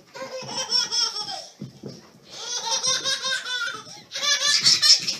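Baby laughing hard in three long bursts of rapid, high-pitched laughter.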